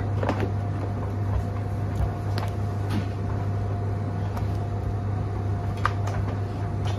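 Steady background hum with a faint high tone, broken by a few light clicks and knocks as the plastic tub and motor head of a Numatic tub vacuum are handled.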